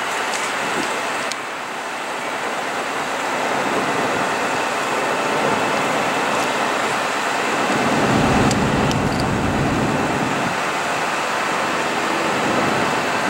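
Metra bi-level commuter train running on the tracks, a steady rushing noise, with a low rumble swelling about eight seconds in.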